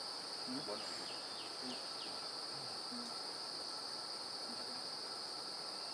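Steady, shrill insect chorus (crickets or cicadas) in forest, an unbroken high drone, with a few short falling chirps about one to two seconds in.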